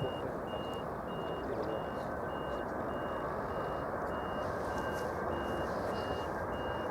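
A high electronic beep repeating evenly, a little under twice a second, over a steady low rumbling noise.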